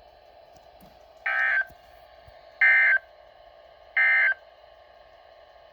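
Three short bursts of Emergency Alert System SAME data tones, the buzzy end-of-message code that marks the close of the alert, each well under half a second long and about a second apart. A faint steady hum runs underneath.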